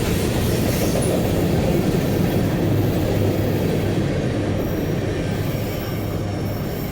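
Freight cars of a manifest train rolling past on the rails: a steady noise of wheels on track.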